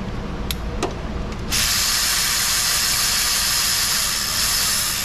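Power ratchet spinning a bolt out of the engine for about four seconds, starting about a second and a half in, after a couple of light clicks.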